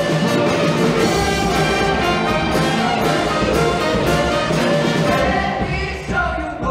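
Live show-choir band with a brass section and drums playing an upbeat instrumental passage; the band stops near the end.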